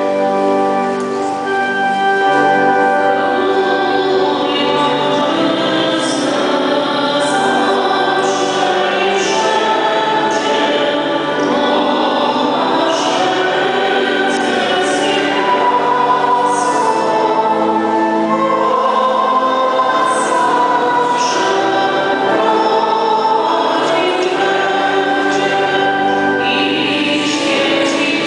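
Church choir singing a processional hymn, with long held notes and no break.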